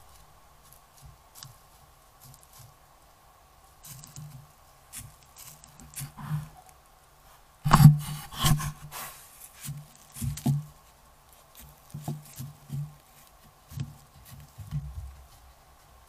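A white-tailed deer's hooves rustling and crunching through dry leaf litter close to a trail camera, with rubbing, scraping and knocking as the deer noses and bumps the camera itself, loudest about eight seconds in. A faint steady electronic hum from the camera runs underneath.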